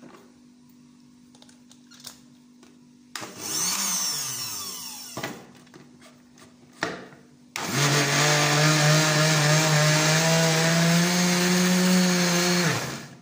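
Electric countertop blender motor: a short burst that winds down, a few clicks, then it runs steadily for about five seconds, puréeing leafy greens with water, before cutting off.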